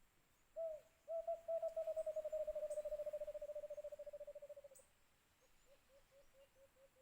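White-eared brown dove calling: a single low note, then a long run of rapid low notes that slowly drop in pitch and fade, followed by a few fainter, spaced notes near the end.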